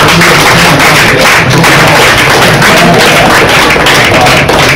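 A crowd clapping and cheering loudly, close to the microphone, with scattered shouts.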